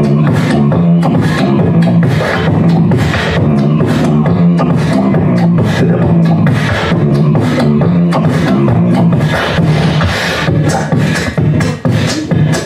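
Human beatbox performed into a handheld microphone: a hummed bass line stepping between notes under a dense run of vocal kick, snare and hi-hat sounds. Near the end the pattern turns choppier, with short breaks between hits.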